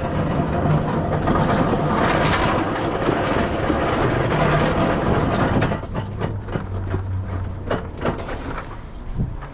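Hard wheels of a manual pallet jack, loaded with a wrapped pallet, rolling and rattling over rough pavement. After about six seconds it drops to scattered clicks and knocks.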